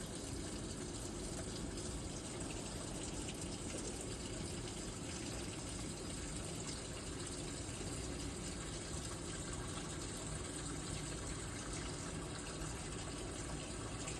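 LG 8.5 kg turbo washing machine running its function test, with a steady rush of water running into the tub as it fills.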